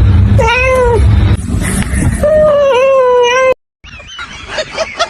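Cat meowing twice: a short meow about half a second in, then a longer, drawn-out wavering meow. The sound cuts off suddenly, and quick repeated short sounds follow near the end.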